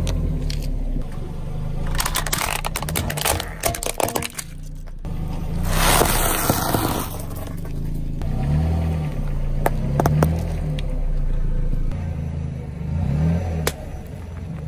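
A car tyre rolling over and crushing crunchy rice cakes and puffed-rice candy, heard as several bursts of crackling and crunching with sharp snaps in between. A car engine runs low and steady underneath.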